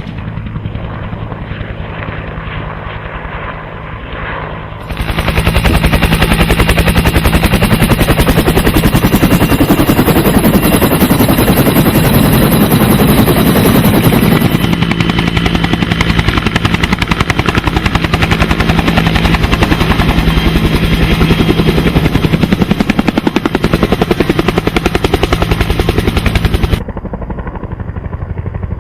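Helicopter in flight, its rotor beating in a fast, even pulse over a steady engine drone. The sound jumps louder and fuller about five seconds in and drops back near the end.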